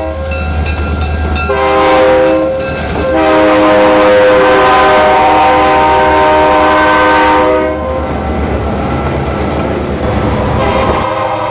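Indiana Northeastern diesel freight locomotives passing close, the air horn sounding a short blast about a second and a half in and then a long one of about four and a half seconds. After the horn stops, the engines' low rumble and the clatter of the hopper cars' wheels on the rails carry on.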